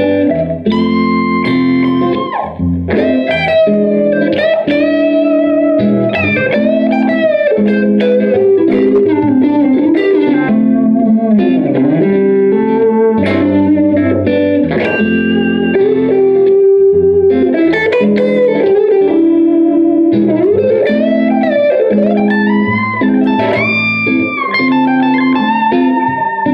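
Electric guitar, a James Tyler Variax JTV-69, played through the Line 6 Spider Valve MKII's Crunch Blue amp model (modelled on an Orange AD30TC) with a crunchy overdriven tone: a bluesy lead line full of string bends over low chords.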